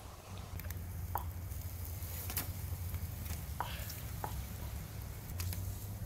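Whole duck grilling on a wire rack over charcoal: scattered light crackles and pops over a steady low rumble.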